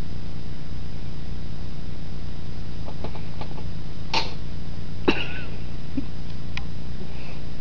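Steady low hum throughout, with a few short sharp sounds from two tabby cats play-fighting, one about four seconds in and one with a brief falling squeak about five seconds in.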